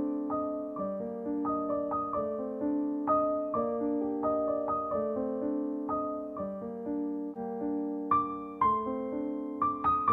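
Background piano music: single notes and chords struck at an even pace, ringing over one another.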